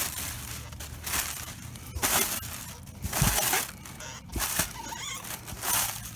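Plastic air-pillow packing crinkling and rustling as it is pushed about inside a cardboard box, in several irregular bursts, with a dull bump a little past three seconds in.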